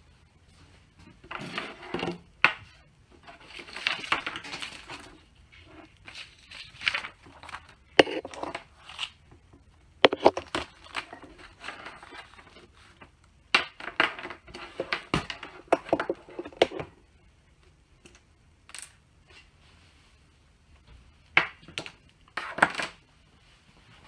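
Cables and a power adapter brick being gathered up and dragged off a desk: rustling and scraping in irregular bursts, with sharp knocks as plugs and the adapter hit the surface.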